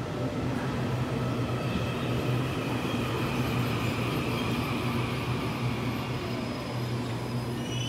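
Taiwan Railways EMU900 electric multiple unit pulling into a station. Its motors whine with a slowly falling pitch as it slows, over a steady low hum.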